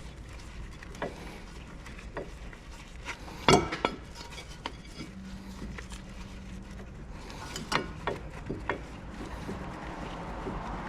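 Scattered clinks and knocks of tools and metal parts being handled, with one loud knock about three and a half seconds in and a few smaller ones near the end.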